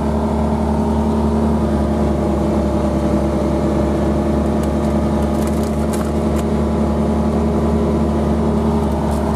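Tracked side-by-side UTV driving through deep snow, its engine and tracks making a steady drone with a held hum, heard from inside the cab.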